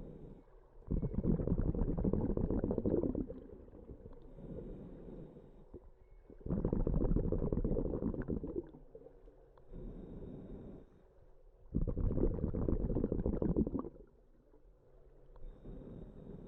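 Scuba diver's breathing through a regulator underwater: three loud bubbling exhalations about five seconds apart, each followed by a quieter inhalation with a faint thin hiss.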